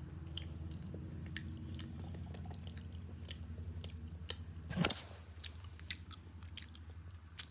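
Someone chewing a snack close to the microphone, with many small clicks over a steady hum, and a handling knock about five seconds in.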